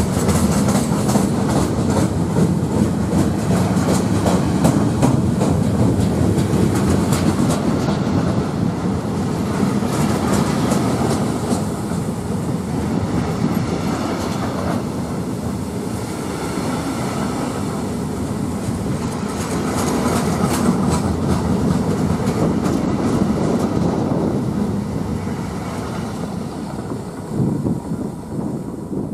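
Freight train of sliding-wall covered wagons rolling past close by, wheels clattering steadily over the rails. The last wagon goes by near the end and the sound starts to fade.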